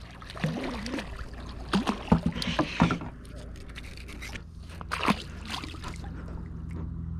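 A few sharp knocks and a splash as a small dogfish is handled and thrown back into the sea from a wooden boat, over a low steady hum.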